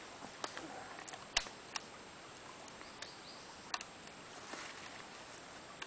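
Stream water running over rocks, a steady low rush, with a few short sharp clicks, the loudest about a second and a half in.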